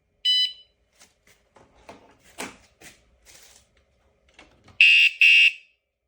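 Motion-sensor bike alarm: a short electronic beep, then handling clicks and knocks, then two loud electronic alarm blasts close together near the end.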